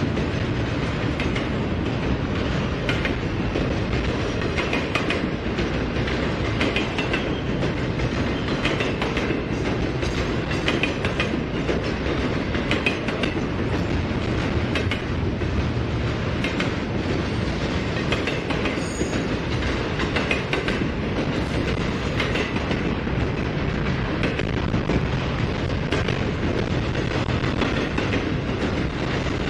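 Freight train rolling past steadily, a continuous rumble with wheels clicking over the rail joints.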